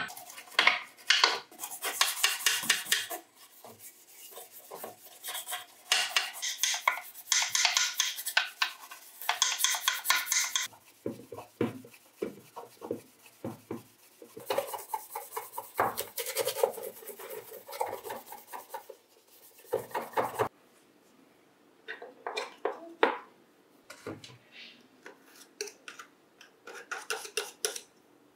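Quick back-and-forth hand scraping strokes on a part, dense and steady at first, then sparser and quieter with short pauses between runs.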